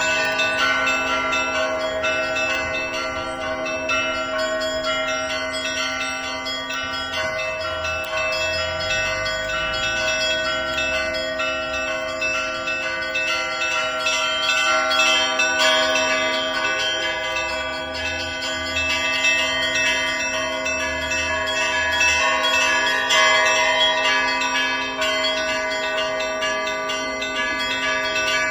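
Russian Orthodox festive peal (trezvon) on a church belfry: many bells of different pitch rung together in one continuous, loud ringing.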